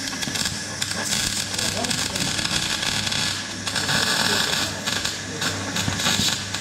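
Electric arc welder crackling steadily as a weld is run on the steel engine mounts, with a low electrical hum under the arc. The crackle starts just before and cuts off just after, with a few short breaks.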